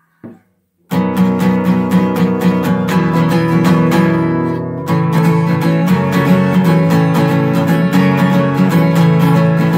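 Acoustic guitar strummed fast and hard in a steady rhythm, starting about a second in, with a change of chord near the middle: the instrumental opening of an acoustic punk song.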